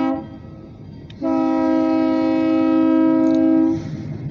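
Multi-chime air horn of the Oil Creek & Titusville Alco locomotive 85 sounding for a grade crossing: the end of a short blast, then one long blast of about two and a half seconds that stops near the end. After it comes the low rumble of the locomotive as it reaches the crossing.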